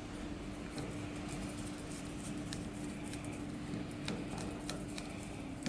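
Small metal clicks and taps of wire links being fitted onto the screw terminals of a fan's connection box, scattered irregularly over a steady low hum.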